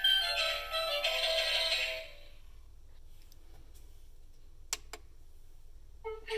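Tinny electronic tune from a battery-operated Hallmark penguin village piece, a simple melody of beeping notes that stops about two seconds in. After a quiet gap there are two quick clicks, and a new electronic tune starts near the end.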